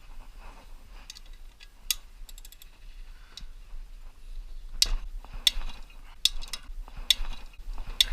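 Metal hand tools clicking and clinking on a small Briggs & Stratton engine being taken apart: a quick run of small ticks, then sharper clicks about every 0.8 s in the second half.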